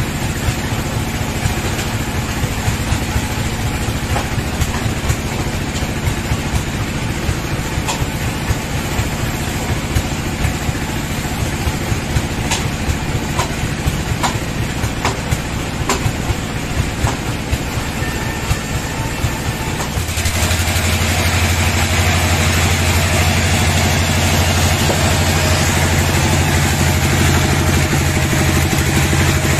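Band sawmill's engine running steadily, with scattered sharp knocks as the log is set and clamped on the saw carriage. About two-thirds of the way through, the engine gets louder and deeper as it picks up speed.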